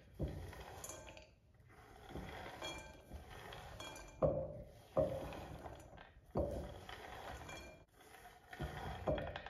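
Freshly cut corn kernels swept by hand off a wooden cutting board into a glass bowl: irregular soft clattering and clinking of kernels dropping onto the glass, with sharper clatters about four and five seconds in.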